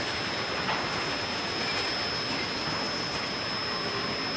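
Diesel-hauled freight train pulling slowly away on its departure: a steady, even rumble of the rolling train.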